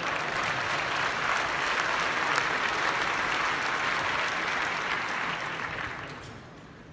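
Audience applauding in a large hall, a dense, even clapping that dies away over the last second or so.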